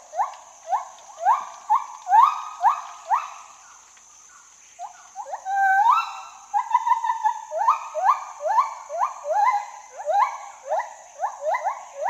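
Gibbon calling: a string of short rising whoops, about two a second, over a steady high hiss. It pauses around four seconds in, then resumes with longer notes that crowd and overlap.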